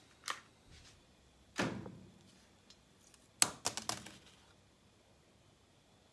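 Handling knocks and clicks: a sharp click, a heavier knock about a second and a half in, then a quick run of four or five clicks about three and a half seconds in.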